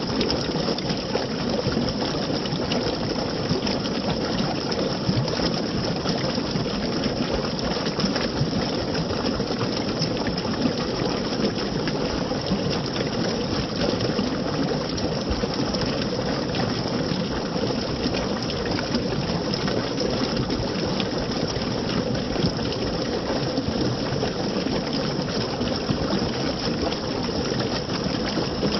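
Running water rushing steadily, an unbroken even wash of sound.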